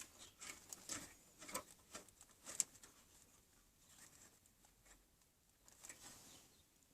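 Faint handling sounds on the scroll saw: a few soft clicks and rustles in the first few seconds, one sharper click about two and a half seconds in, then near silence.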